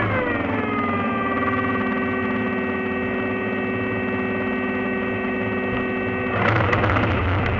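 Model aerobatic plane's motor and propeller running on the ground, a steady humming whine that drops in pitch over the first second or so as the throttle comes back, then holds. Near the end comes a louder rush of about a second.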